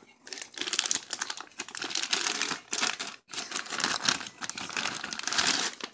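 Plastic packaging crinkling and rustling as it is handled, in irregular bursts with a brief pause about three seconds in.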